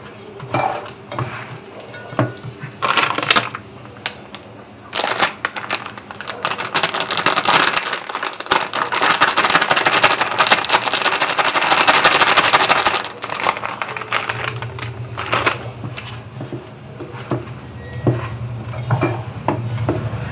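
Hands squeezing and mixing sliced onions with flour in a steel bowl, with scattered rustles and knocks. Partway through, a plastic bag of flour crinkles loudly for several seconds as flour is poured from it into the bowl. A low steady hum starts about two-thirds of the way in.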